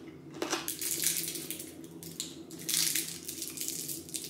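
Shiny plastic twist wrapper of a hard candy crinkling as it is untwisted by hand, in irregular crackles that start about a second in.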